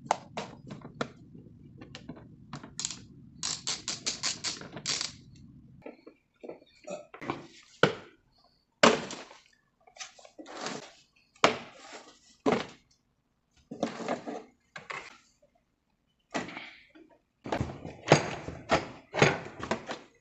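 Knocks, clicks and clatter of hard parts being handled, irregular and sharp, with a low steady hum under the first six seconds that then stops.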